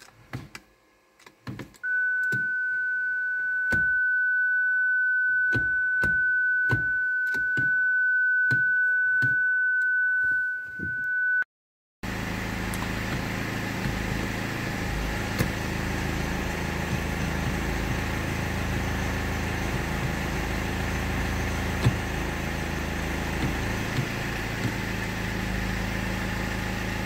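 Sharp clicks about once a second from the BMW E60's automatic gear selector being worked, with a steady high beep running under them from about two seconds in. After a cut near the middle, the car's engine idles steadily, heard from inside the cabin.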